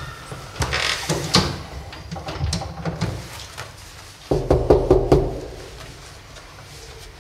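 Knuckles rapping several times in quick succession on a wooden apartment door, about four seconds in, after a few scattered thuds and steps in a small, reverberant hallway.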